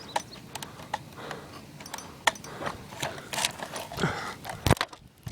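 Footsteps and rustling through dry leaves and brush, with irregular snaps and clicks and a louder crunch near the end.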